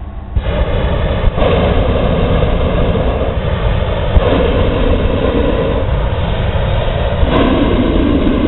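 Hot-air balloon propane burner firing into the envelope during hot inflation: a loud, steady rushing blast that starts about half a second in and has a short break about a second in. The engine of the inflator fan hums beneath it.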